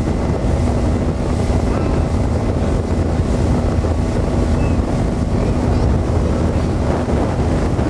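1995 Johnson 200 hp two-stroke V6 outboard running steadily at about 5000 rpm, pushing the boat at around 37 mph, with wind buffeting the microphone and water rushing past the hull.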